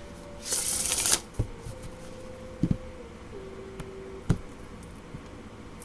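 A deck of tarot cards being shuffled in a short burst about half a second in, then a few sharp clicks and taps as the cards are handled.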